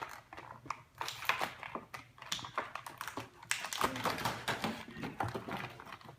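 Irregular light clicks and taps of plastic and cardboard toy packaging being handled and pried at, many small sharp clicks in quick, uneven succession.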